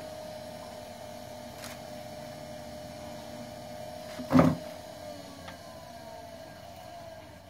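Electric potter's wheel motor whining steadily while wet clay is pulled up on the turning wheel, its pitch sinking a little over the last couple of seconds. A single short, loud thump about four seconds in.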